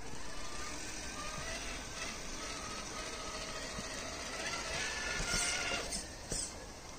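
Electric motor and gear drivetrain of a radio-controlled scale crawler whining as it drives, the pitch shifting with the throttle.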